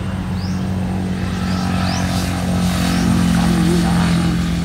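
A small engine running steadily at one constant pitch, a little louder in the second half, with a few short, high rising chirps over it.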